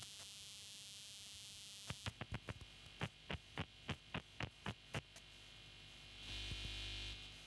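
Steady electrical hum and hiss, with a run of about a dozen sharp clicks, roughly three a second, starting about two seconds in. A louder buzz comes in near the end.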